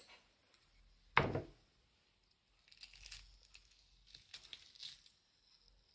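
A silicone rubber mould being peeled and pulled open off a freshly cured polyurethane resin cast, giving a run of faint, quick crackling and tearing sounds in the second half. There is one sharp thump about a second in.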